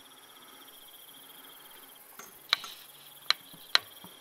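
Three sharp clicks in the second half, under a second apart: metal tweezers knocking against a small plastic vial. Before them a faint, steady high-pitched trill runs and stops about two seconds in.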